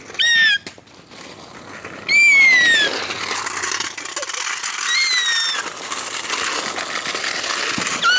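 An animal's short, high-pitched whining calls, four of them spaced a few seconds apart, each falling in pitch. A steady hiss runs behind them from about three seconds in.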